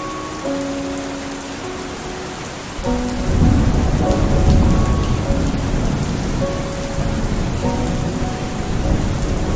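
Heavy rain pouring steadily, an even hiss. About three seconds in, a deep low rumble comes in and stays loud to the end.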